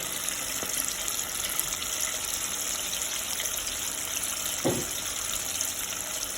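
Floured pig tails deep-frying in hot oil: a steady sizzle with fine crackle. One brief voice-like sound about two-thirds of the way through.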